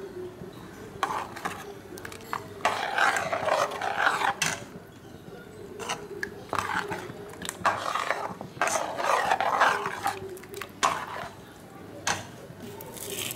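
A steel ladle stirring through a pan of thin rajma gravy, in repeated irregular swishing, scraping strokes over a steady low hum.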